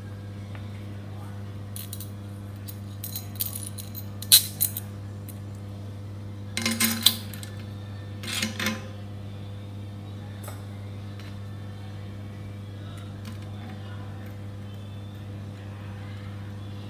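Steel wrenches clinking against a Shimano rear hub's axle, cone and locknut as they are fitted for tightening the cone: a few short clusters of sharp metal clinks, the loudest about four seconds in, with no clinks in the second half. A steady low hum runs underneath.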